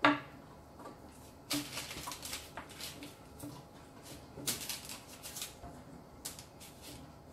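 Hands pressing and arranging strands of yeast dough on a parchment-lined baking tray, with soft rustles of the paper in a few short bursts.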